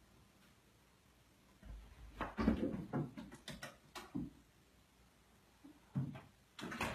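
A cat leaping up and scrabbling at a wooden door frame: a run of thumps, knocks and claw scrapes over about two seconds, then a few more knocks near the end.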